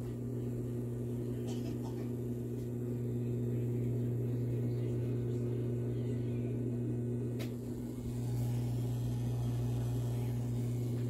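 Portable countertop dishwasher running with a steady low electric hum from its pump motor, dipping briefly near the end. The water is not spraying correctly and not coming up as it is supposed to.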